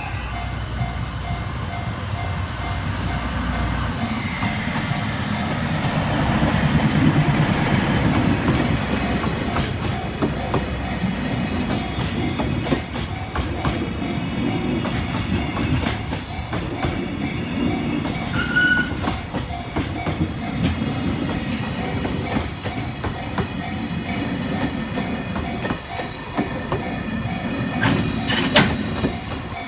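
Diesel-hauled freight train running past over a level crossing: a steady low rumble with the wheels clacking over the rail joints, and a brief sharp squeal near the end.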